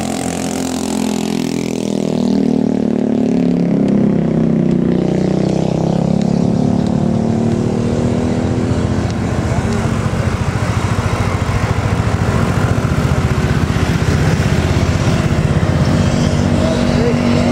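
Large tour bus's diesel engine running under load. Its pitch climbs over the first couple of seconds, then holds steady.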